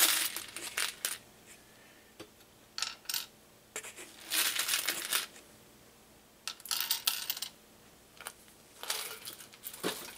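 Small shotshell reloading components being handled on the bench: rattling, clicking and rustling in about seven short bursts with brief pauses between them.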